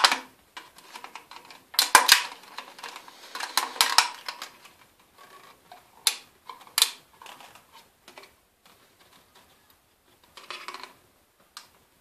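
An African grey parrot's beak clicking and tapping against a cup as it drinks: scattered sharp taps, with a few louder knocks a couple of seconds apart that thin out near the end.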